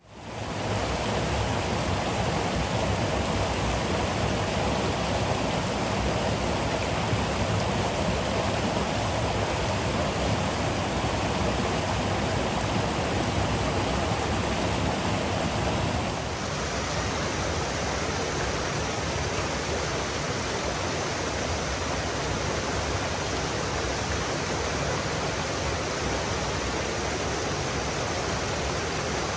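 Creek water pouring over a low weir into a churning whitewater pool: a steady rushing that fades in at the start and shifts slightly in tone a little past halfway.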